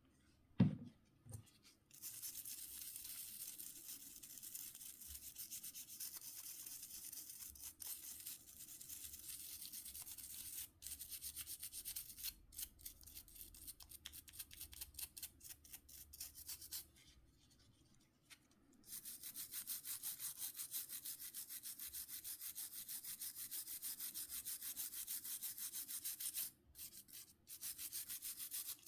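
Rapid back-and-forth brush scrubbing on the Nokia C5-00's parts during cleaning, in long runs of quick, even strokes with a couple of short pauses; a single knock about half a second in.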